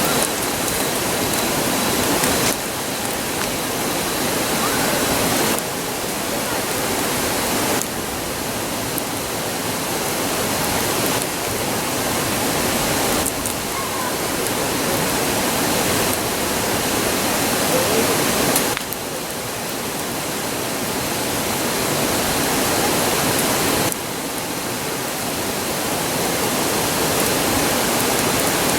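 Steady rushing roar of a nearby river. The level creeps up and drops abruptly every few seconds.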